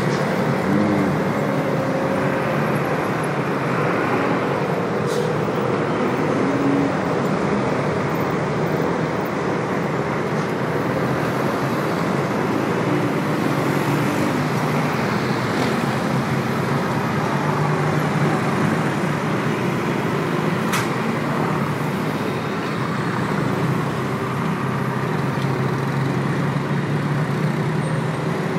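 Dense traffic on a multi-lane city avenue: car, bus and truck engines running and tyres on the road, blending into one steady, continuous noise.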